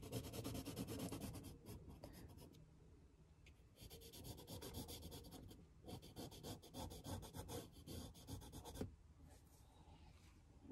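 Pencil scratching on rough, medium-grain watercolour paper in quick short strokes, in two spells with a pause of about a second and a half between them, stopping about nine seconds in.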